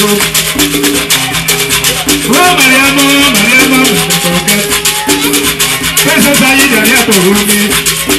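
Live Bamoun kpalum dance music: rattles shaken in a fast, steady rhythm with drums, and a wavering melody line weaving over them, played loud and continuous.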